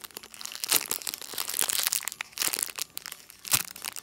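Clear cellophane packaging around a foam squishy toy crinkling and crackling irregularly as hands squeeze and turn it, with one sharper crackle about three and a half seconds in.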